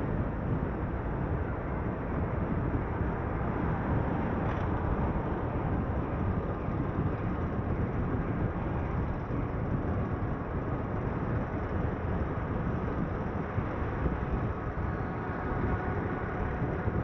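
Steady running noise of a car on the move: engine and tyres on the road, a constant low rumble with no clear separate events.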